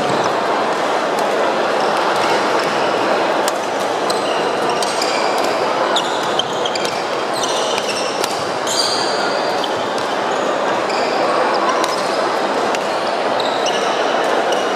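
Busy sports-hall din from several badminton courts, with sharp racket-on-shuttlecock hits and short high squeaks of court shoes on the wooden floor, busiest in the middle of the stretch.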